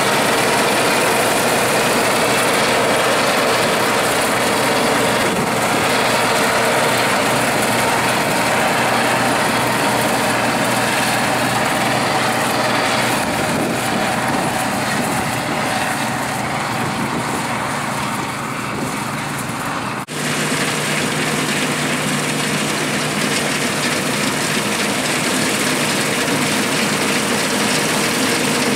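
Bizon Rekord Z058 combine harvester running steadily while harvesting oats: its six-cylinder diesel engine together with the threshing machinery. The sound eases a little as the combine draws away, then breaks off abruptly about two-thirds of the way through and comes straight back at full strength.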